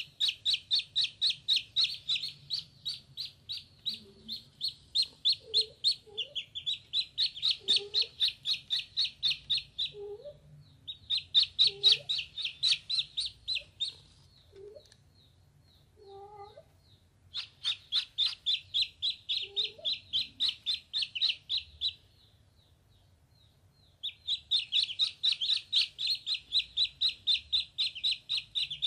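Ducklings peeping rapidly, about five high peeps a second, in bouts of several seconds with short pauses between.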